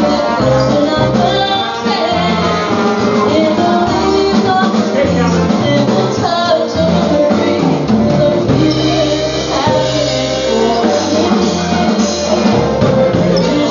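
Live polka band playing dance music, with a steady, repeating bass pattern under the melody.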